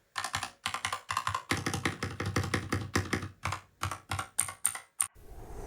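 Typing on a Keychron K2 Retro mechanical keyboard with red linear switches: quick, uneven runs of keystrokes clacking, stopping about five seconds in. A rising whoosh starts just after.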